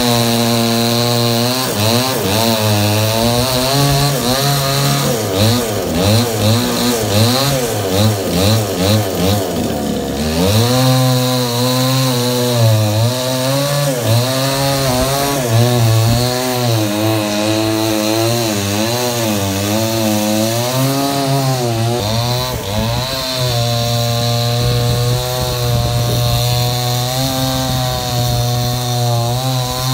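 Two-stroke chainsaw cutting into the base of a tree trunk, its engine pitch rising and falling repeatedly as it works the cut. About ten seconds in the engine sags low, then revs back up.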